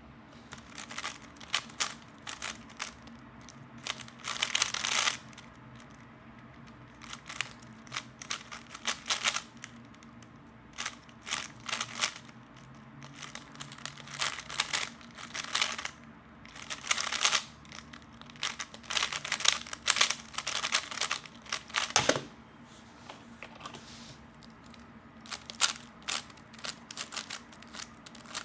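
A 3x3 speedcube being turned rapidly by hand: bursts of quick plastic clicking and clacking from fast finger turns, separated by short pauses. One sharper knock about 22 seconds in.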